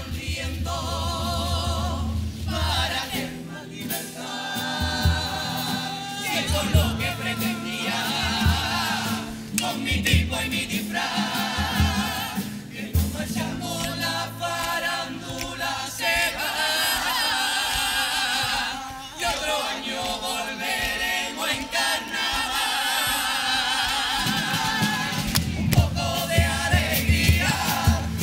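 A Cádiz carnival comparsa of young singers singing in several voices, accompanied by Spanish guitars and a drum beat.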